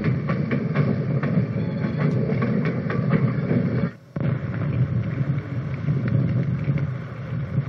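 Metre-gauge railway coaches rolling past with a steady rumble and wheels clicking over the rail joints. The sound drops out for a moment about four seconds in.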